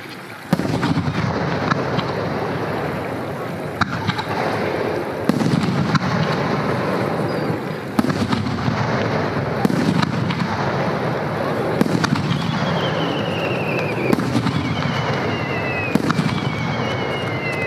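Aerial firework shells bursting in quick succession, a sharp boom every one to two seconds with rolling echoes filling the gaps. In the second half a thin high whistle falls in pitch several times.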